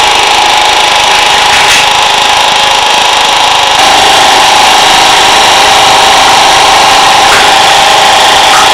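Small battery-powered motors of a Trackmaster motorized toy train set whirring steadily with a high whine, a little louder from about four seconds in.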